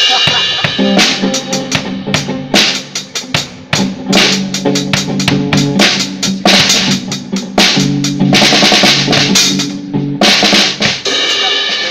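Drum kit played hard, with fast strokes on the drums and repeated cymbal crashes, over a low held tone.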